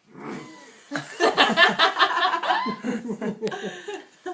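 Laughter: a run of quick laughing pulses that starts about a second in and fades out near the end.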